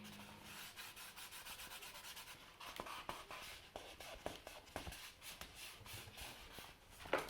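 A shape being cut out by hand: a faint, quick, irregular run of small scratchy cutting strokes.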